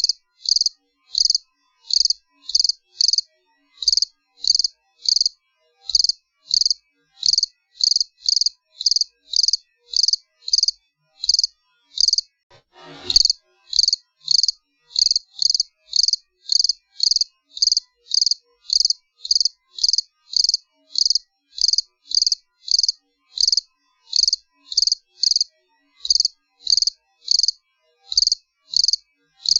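A cricket chirping steadily, short high-pitched chirps about twice a second. About halfway through, a single brief sound sweeps down in pitch from high to very low over the chirping.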